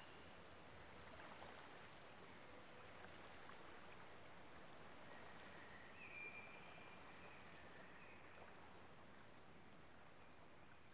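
Near silence: faint lakeside ambience, a soft even hiss of gently moving water, with a faint thin high tone about six seconds in.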